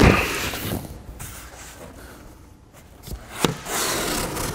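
Cardboard box handling: a loud scraping knock as the boxed compressor is set down on a steel workbench, then, after a quieter stretch, a couple of sharp knocks and cardboard rubbing as the box flaps are pulled open.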